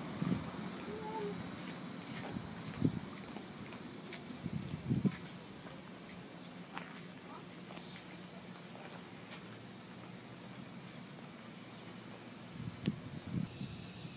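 Steady high-pitched drone of an outdoor insect chorus, growing louder near the end, with a couple of soft knocks.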